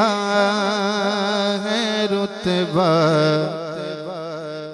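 A man singing an Urdu naat unaccompanied into a microphone, drawing out the words of the line in long, wavering melismatic notes, with a new syllable about halfway through.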